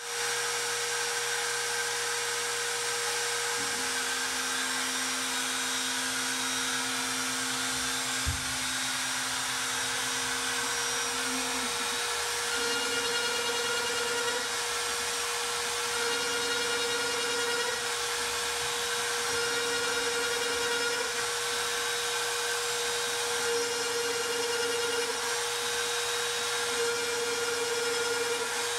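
Shapeoko XL CNC router with its Carbide 3D trim router spinning with a steady high whine while milling dowel holes in a pine board. The gantry's stepper motors add lower tones that come and go in repeated blocks every three to four seconds as the machine moves between cuts. There is one short low knock just after eight seconds.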